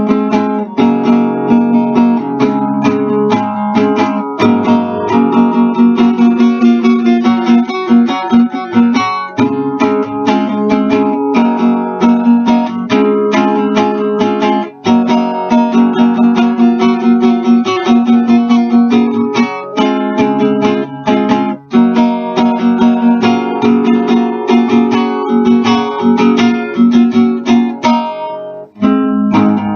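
Acoustic guitar playing, strummed and picked chords over a steadily repeating note, with a brief dip near the end.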